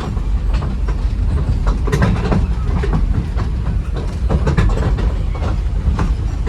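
Park toy train running on its track: a steady low rumble with irregular clacks of the wheels over the rails.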